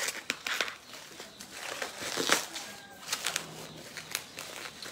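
Plastic parcel wrapping crinkling and rustling as it is pulled open by hand, in irregular crackles, the loudest a little over two seconds in.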